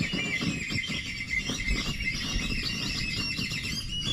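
A flock of whistling ducks calling: many short, high whistled calls overlapping continuously, over a low rumble.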